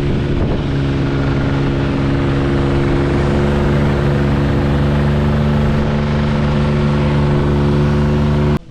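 Motorboat engine running at a steady speed, a loud even drone, stopping abruptly near the end.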